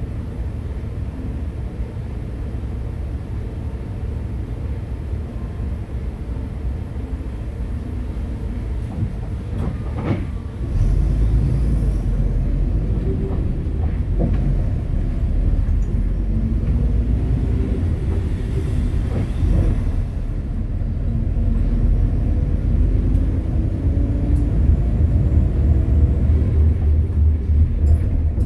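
Low engine and road rumble of a city bus, heard inside the cabin. It steps up sharply louder about ten seconds in, just after a click, and builds again near the end, with a faint wavering whine above the rumble.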